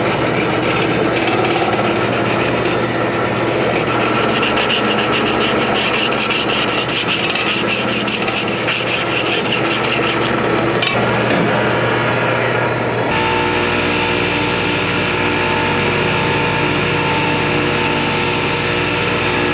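Abrasive paper or a file rasping over a katana's layered handle scales in quick, even back-and-forth strokes. About thirteen seconds in, the sound changes abruptly to a steady hum with several steady tones.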